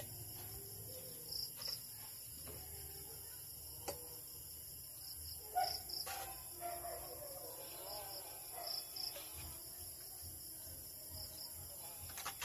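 Crickets chirping in short repeated pulses, with a few sharp clinks of a spoon against a clay pot and a bowl as food is spooned out.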